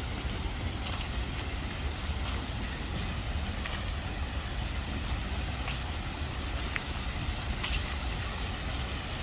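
Outdoor street ambience: a steady low rumble of road traffic, with a few faint scattered ticks.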